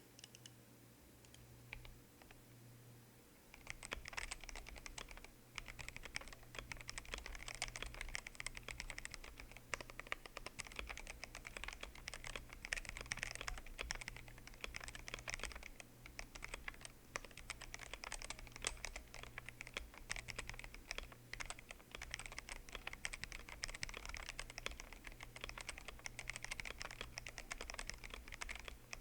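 Fast typing on a GMMK Pro mechanical keyboard with a polycarbonate plate and stock Gateron Black Ink V2 linear switches. The rapid run of keystrokes starts about four seconds in and continues with only short pauses.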